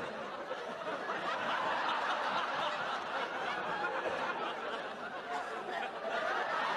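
Studio audience laughing, a continuous wave of laughter that dips slightly about midway and swells again near the end.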